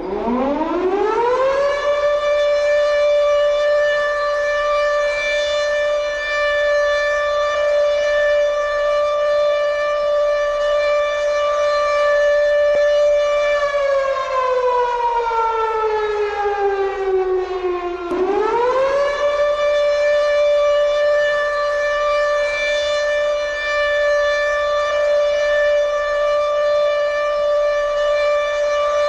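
A siren winding up to a steady wail, holding its pitch for several seconds, then sliding slowly lower before quickly winding back up to the same wail and cutting off abruptly near the end.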